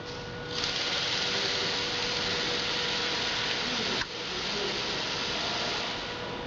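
A steady loud hiss, such as a workshop air tool makes, starts about half a second in. It cuts out for a moment at about four seconds, then resumes and drops away near the end.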